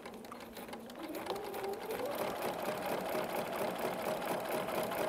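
BERNINA sewing machine with a walking foot quilting straight lines through the three layers of a quilt sandwich: the motor speeds up over the first couple of seconds, then runs steadily with a rapid, even stitching rhythm.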